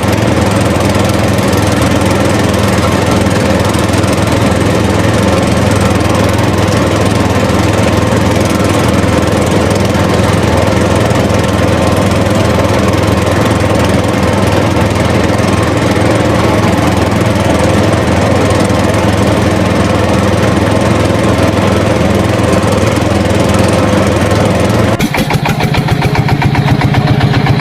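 A steady, loud engine running with a constant low hum. About three seconds before the end it changes to a rapid pulsing.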